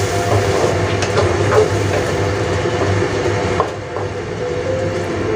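Wooden spatula stirring and scraping baby squid around a stainless steel wok as it fries, with a steady sizzle and irregular knocks of the spatula against the pan.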